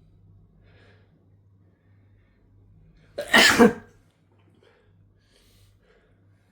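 A man's single loud sneeze about three seconds in, brought on by chhinkni (sneezing powder).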